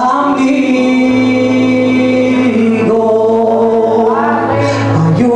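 Spanish-language gospel worship song sung into a microphone: long, steady held notes, with the singing line moving again near the end.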